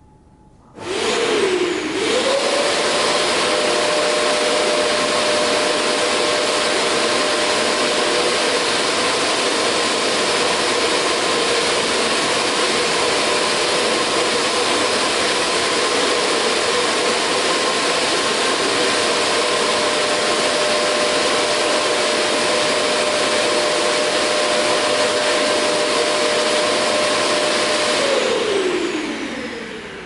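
Vacuum cleaner switched on about a second in, its motor whine dipping briefly and then settling into a steady pitch under a loud rush of suction air. Near the end it is switched off, and the whine falls as the motor winds down.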